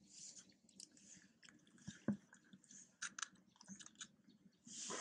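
Faint, scattered clicks and rustles from a close group of long-tailed macaques with newborn infants.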